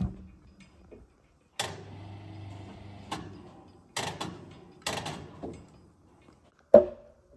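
Irregular knocks on a heavy wooden ridge beam as it is worked into its seat on the stone walls, then sharp hammer blows about a second apart near the end.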